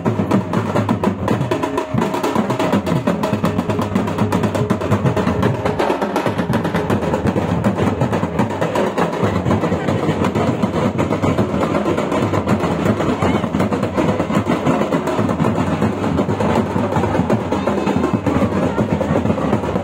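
Several large two-headed folk drums beaten with sticks, playing a fast, continuous rhythm of dense strokes.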